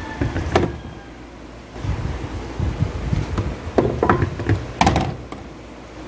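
Cardboard milk and juice cartons set down and shuffled in a plastic fridge door shelf: a series of soft thumps and knocks with a few sharper clicks, over a low steady hum.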